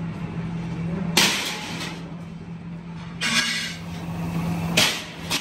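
Rolled sheet-steel wheel-rim bands clanking as they are handled and set down: four sharp metallic clangs over a steady low machine hum.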